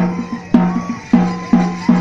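Percussion music: a deep-toned drum struck in a steady rhythm, about two beats a second, with quick lighter strokes between some beats.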